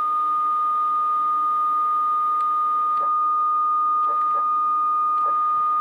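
Homemade CNC machine's stepper motors giving a steady, high-pitched whine at one pitch, with a few faint clicks, as the carriage is jogged into position over the tile.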